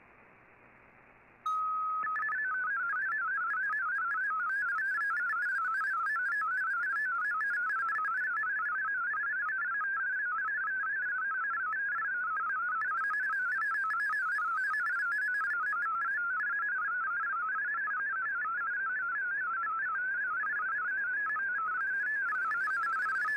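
MFSK32 digital data signal received on shortwave: faint static, then about a second and a half in a steady tone starts and breaks into a rapid, even warble of tones hopping up and down within a narrow pitch band. It is the text stream of the broadcast being sent, which the decoder turns into text.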